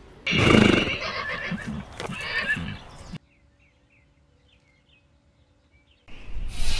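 A loud animal call lasting about three seconds that cuts off abruptly, followed by faint bird chirps over a low hum, and a rush of outdoor noise near the end.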